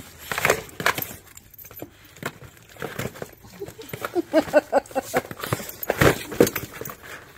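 A large dog pawing, clawing and biting at a cardboard box on a concrete floor: a run of sharp scrapes, scratches and rips of cardboard, loudest about six seconds in.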